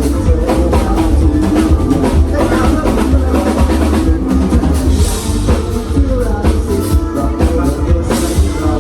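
Live band playing a Thai pop song: a drum kit keeps a steady beat under bass and other instruments.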